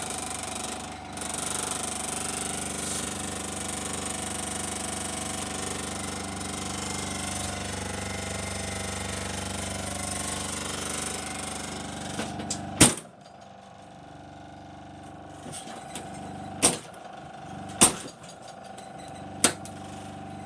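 A Soviet Dnepr refrigerator's compressor running with a steady mechanical hum, which stops with a loud click about 13 seconds in. A few more sharp clicks follow.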